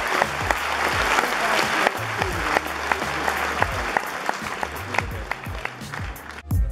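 Spectators at a tennis match applauding after a point, the clapping slowly thinning out. Background music with a low bass line runs underneath and takes over just before the end.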